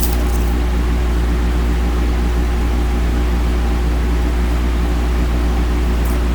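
A loud, steady low hum with a fainter buzzing tone above it, unchanging throughout; a brief soft rustle near the end.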